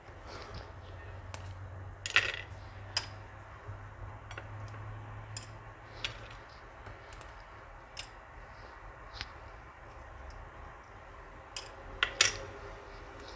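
Small ferrous sulfate crystals being set down and dropped into a glass petri dish, giving scattered light clinks and taps on the glass. The two loudest clinks come about two seconds in and near the end.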